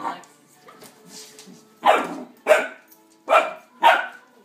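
A puppy barking in play: after a quieter start, four short, sharp barks about half a second apart, beginning about two seconds in.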